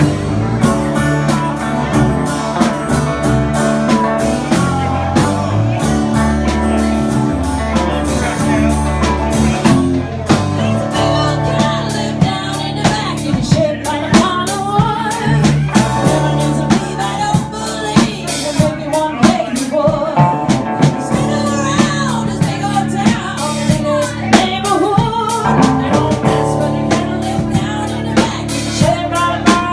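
A live band playing a blues-style song with drum kit and guitars; a woman's lead vocal comes in about twelve seconds in.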